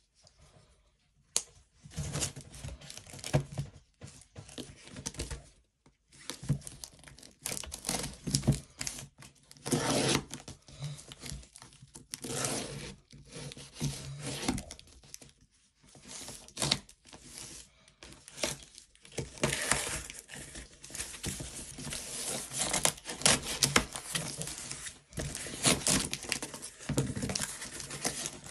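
Tape-wrapped cardboard parcel being torn open by hand: irregular ripping and crinkling of packing tape and cardboard, in bursts with short pauses between.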